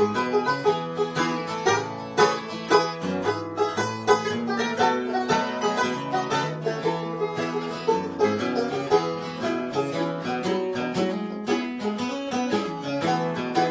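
Bluegrass instrumental break: quick, steady banjo picking over strummed acoustic guitar with a walking bass line, no singing.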